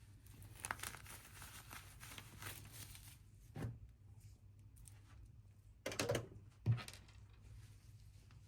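Handling noise: rustling and crinkling with a few short knocks, the sharpest about two-thirds of the way through, over a low steady hum.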